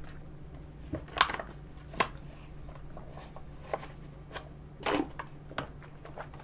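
Close-miked drinking through a straw from a triangular paper milk carton: irregular sharp clicks and short sucks as the carton is squeezed and sipped, the loudest about a second in and a longer one near five seconds.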